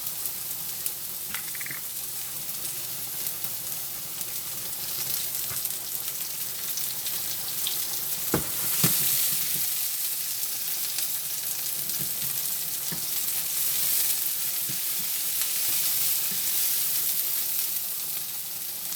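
Onions sizzling in hot oil in a frying pan as they caramelize, a steady frying hiss with a few sharp knocks of a utensil against the pan, the clearest about eight and nine seconds in.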